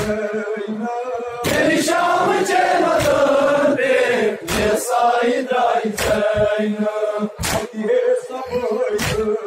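Crowd of men chanting a nowha lament in unison, with loud sharp strikes about every one and a half seconds keeping the beat: the matam chest-beating of mourners.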